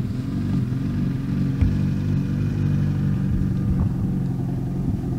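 An engine running steadily with a low hum, with a single click about a second and a half in.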